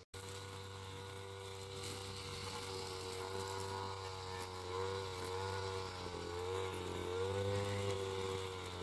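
A small engine running steadily, its pitch wavering up and down in the second half.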